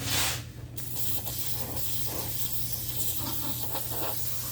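Aerosol brake cleaner spraying into an old scroll saw's works: a short loud burst, then a steady hiss from about a second in.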